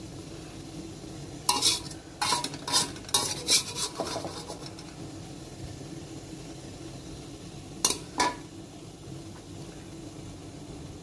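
Metal spatula scraping and clinking against a wok and the rim of a ceramic bowl as stir-fried food is scooped into the bowl: a quick run of about six strokes, then two more after a pause, over a steady low hum.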